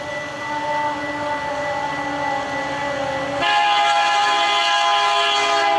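Approaching Canadian Pacific diesel locomotives droning, then about three and a half seconds in the lead locomotive's horn sounds a long, loud chord that cuts off just before the end.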